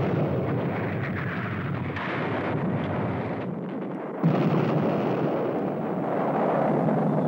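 Battle sound: a continuous din of explosions and artillery fire, with no distinct single shots, that jumps louder about four seconds in.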